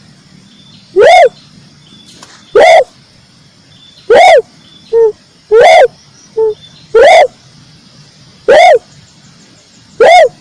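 Red turtle dove calling: loud single arched notes repeated about every one and a half seconds, with two shorter notes slipped in between mid-way, over a faint steady background.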